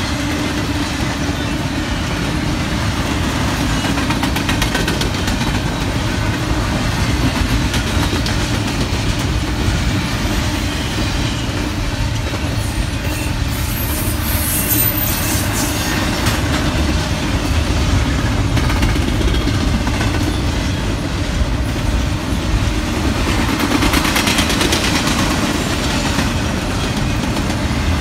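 Double-stack intermodal train's well cars rolling past: a steady rumble and rattle of steel wheels on rail, with a brighter clatter near the end.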